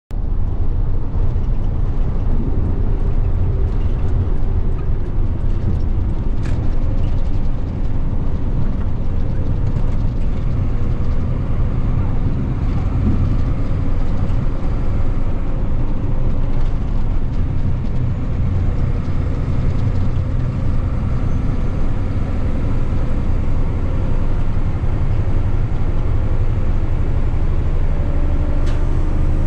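Box truck on the move: the steady low rumble of its diesel engine mixed with tyre and road noise, with no change in pace.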